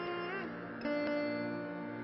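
Indian classical background music on a plucked string instrument over a steady drone. A note bending in pitch fades out, and a new note is plucked about a second in and held.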